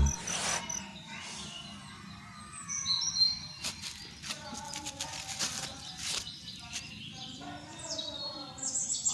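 Birds chirping in short high calls, with several sharp clicks in between.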